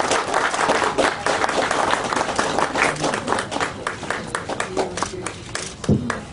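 Applause from a small group, hands clapping densely at first and thinning out toward the end.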